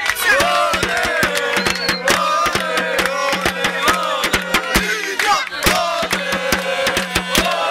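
Music playing while a group of boys shout and chant together in celebration, with sharp beats all through.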